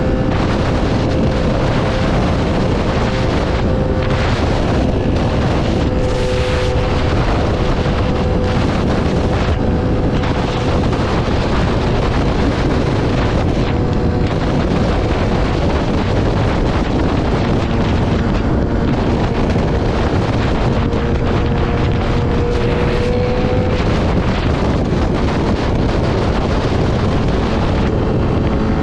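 Heavy wind rush on the microphone at riding speed over the steady note of a Yamaha R6's inline-four engine, its pitch holding fairly even and creeping up slightly about three-quarters of the way through.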